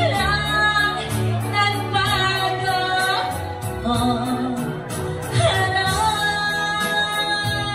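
A man singing live into a microphone over a backing track, holding long notes above a steady bass line.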